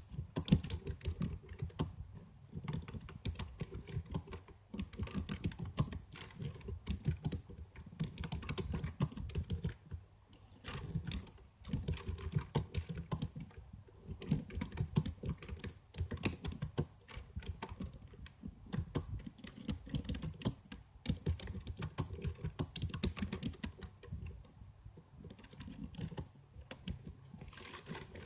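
Typing on a computer keyboard: rapid, irregular key clicks in bursts, with short pauses between runs.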